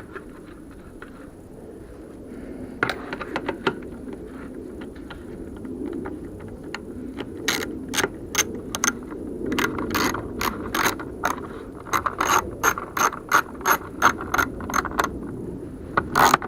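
Ratchet wrench tightening a 10 mm bolt, its pawl clicking in quick strokes. Scattered clicks early on give way, about halfway through, to steady runs of two or three clicks a second.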